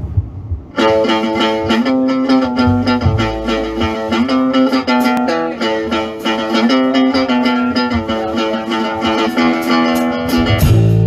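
Electric guitar playing a quick picked riff on its own. Near the end the band comes in with a heavy low bass note and a hit.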